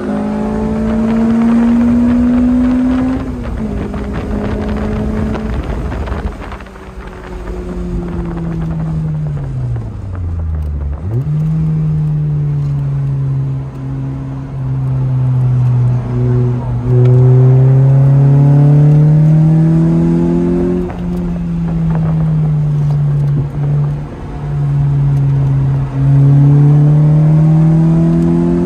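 Sports car engine heard from inside the cabin, accelerating hard through the gears with its pitch climbing and dropping at each gear change. About six seconds in it eases off and the revs fall sharply, then it pulls hard again, with several more upshifts.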